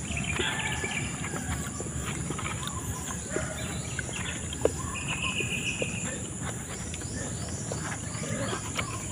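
Birds chirping over a steady high insect drone, with soft scattered clicks and scrapes of young coconut flesh being worked from the shell by hand.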